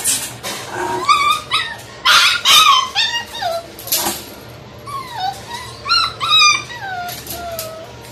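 Chow Chow puppies whining and yipping: a run of short, high-pitched cries that slide up and down in pitch, with a couple of brief knocks among them.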